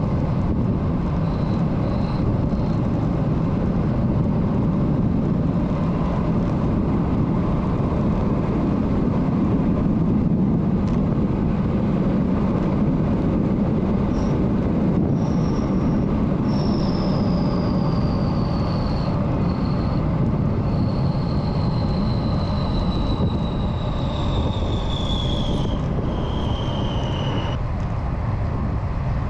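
Wind rushing over the handlebar camera's microphone, with tyre and road noise from a bicycle moving at speed through a street. About halfway through, a thin high whine sets in and breaks off several times. It falls slowly in pitch for about twelve seconds, then stops near the end.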